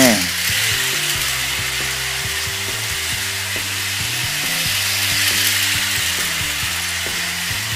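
Two toy trains with small tuned motors running flat out around plastic track: a Plarail Doctor Yellow with a Power Dash motor and a Daiso Petit Densha 500 Series with a 2.4 V Plasma Dash motor. Together they make a steady high whirring hiss of motors and wheels on the rails.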